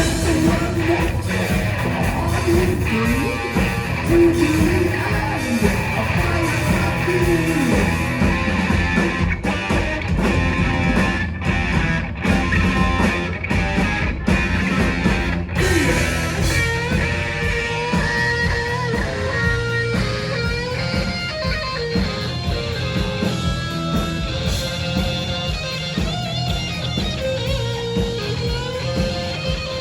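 Heavy metal band playing live: loud distorted electric guitars over bass and drums in an instrumental section, with a run of short stops between about nine and sixteen seconds in.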